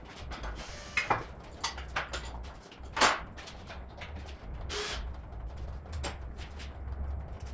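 Sped-up workshop clatter: a quick run of clicks and metal knocks from tools and car parts being handled, the loudest knock about three seconds in, over a low steady hum.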